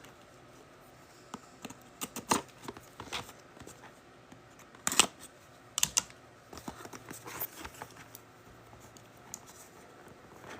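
Scattered light clicks and taps of a cardboard trading-card box and its packaging being handled and opened, the sharpest knock about five seconds in.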